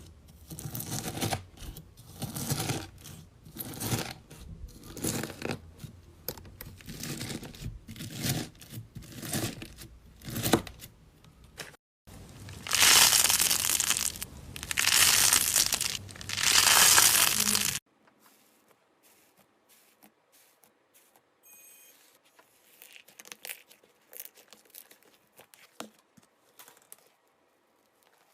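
Slime being squeezed and worked by hand, crackling in quick repeated squishes, then three longer, louder squeezes. After that it drops to a few faint clicks and pops.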